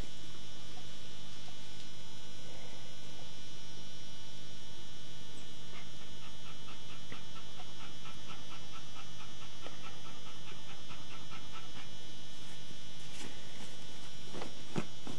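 A whelping dog making short, rhythmic mouth sounds, about three or four a second, over a steady electrical hum and hiss; a louder rustle near the end.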